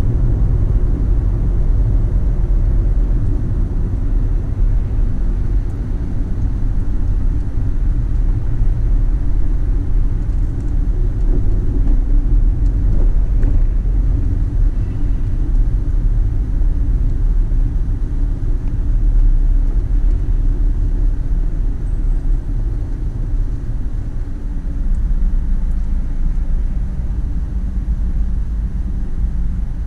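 Car driving on city streets: a steady low rumble of engine and tyre noise.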